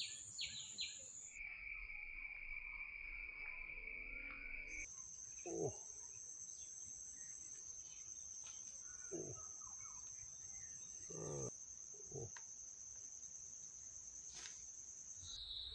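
Insects shrilling steadily in a high, thin, continuous tone. Four or five short sounds glide down in pitch over it, the loudest about five seconds in.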